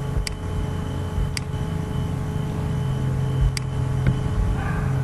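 Steady low hum with a faint thin high whine, broken by three short sharp clicks, about a third of a second, a second and a half, and three and a half seconds in.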